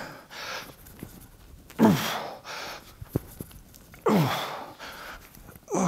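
A man's strained groaning exhalations, each falling in pitch, three about two seconds apart, one with each rep of heavy dumbbell lateral raises with 17.5 kg dumbbells.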